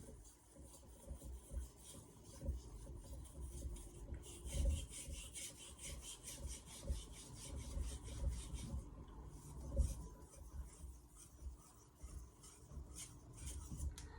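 A VG10 stainless steel knife blade scraped back and forth across a Naniwa Aotoishi #2000 whetstone that has only been splashed with water, not soaked. The strokes come in quick runs, with a pause around the middle and more strokes near the end.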